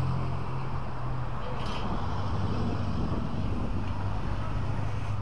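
Street traffic noise: a steady low engine hum from nearby motor vehicles, dropping slightly in pitch about a second and a half in.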